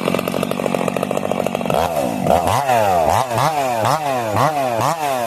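Ported, piped Stihl MS 362 C two-stroke chainsaw running steadily, then from about two seconds in revved up and let fall back again and again, about two quick revs a second.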